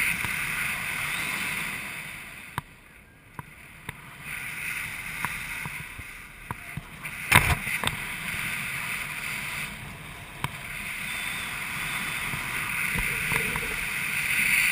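Wind rushing over the camera microphone during parachute canopy flight, swelling and fading, with a few sharp clicks and taps, the loudest about seven seconds in.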